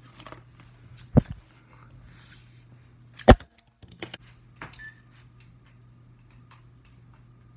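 Handling noise from the camera being set up: two sharp knocks about two seconds apart, then a few fainter clicks, over a low steady hum.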